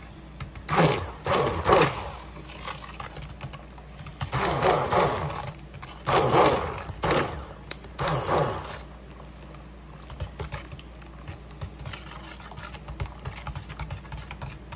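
Hand-held stick blender run in short bursts through warm lotion in a stainless steel pot, emulsifying the melted oils and butters with the hot water: about five bursts of churning, scraping noise in the first nine seconds, over a low steady hum.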